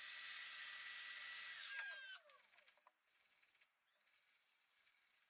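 Shop vacuum running with a steady high hiss and whine, switched off about two seconds in, its motor whine falling as it spins down. Faint scrapes and taps follow.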